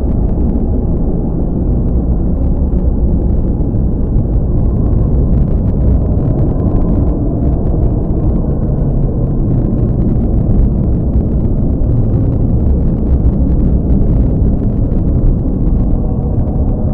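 A steady, deep rumble that runs on without a break.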